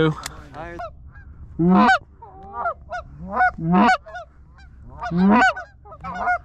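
Hand-blown goose call honking from the blind, calling to an approaching goose. Loud two-note honks rising in pitch come about every one and a half seconds, with quieter short clucks between them.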